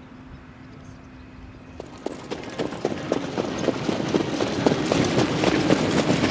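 Hoofbeats of harness-racing trotters pulling sulkies on a dirt track: a rapid patter of hoof strikes that starts about two seconds in and grows louder as the horses trot past close by.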